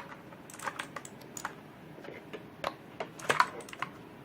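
Irregular, scattered clicks from an ABKO Hacker K645 mechanical keyboard with clicky blue switches as it is handled.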